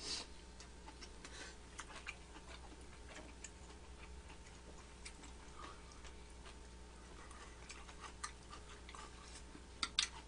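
Quiet mouth sounds of people eating: a short slurp of glass noodles at the start, then faint wet chewing and smacking clicks scattered through the rest, with a few sharper clicks near the end.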